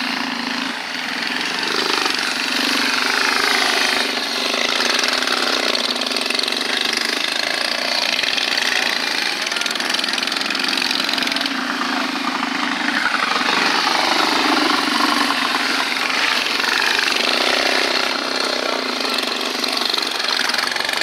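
Several mini bike engines racing, their pitch rising and falling over and over as riders accelerate and ease off.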